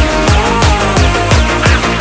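Background electronic dance music with a fast, steady beat.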